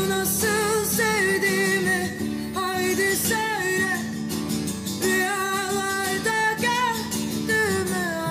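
Music: a Turkish love song in a passage between sung lines, with a wavering melody over plucked guitar accompaniment.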